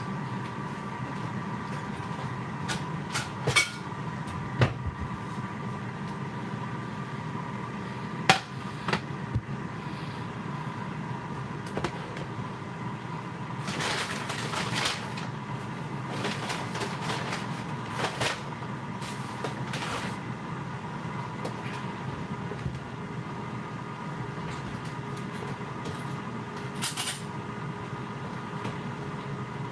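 A GoWISE basket air fryer hums steadily as it preheats, while ceramic plates and takeout boxes are set down on a glass-top stove in scattered knocks and clatters.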